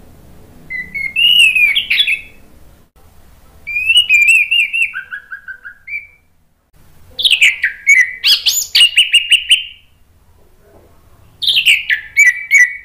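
Orange-headed thrush singing: four loud phrases of quick, rising and falling whistled notes, each a couple of seconds long, with short pauses between.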